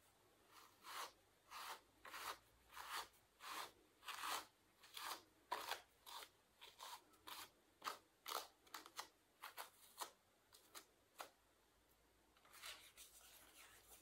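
Tufts of cotton being pressed and drawn onto the fine wire teeth of a hand carder: a run of short, scratchy strokes, about one and a half a second at first and quicker and lighter later, stopping about eleven seconds in, followed by a softer rustle.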